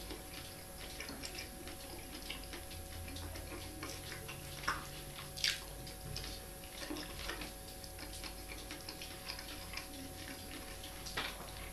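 Quiet eating sounds: a fork clicking and scraping against a metal baking tray, with a few sharper clicks about midway and one near the end.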